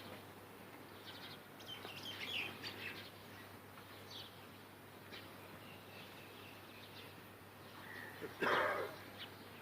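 Small birds chirping faintly in short scattered calls, more of them in the first few seconds. About eight and a half seconds in there is a brief, louder, noisier sound.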